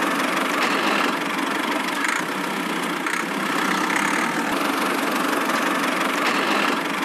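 Small electric motor and gearbox of a miniature DIY toy tractor running steadily as it drives along pulling a trolley.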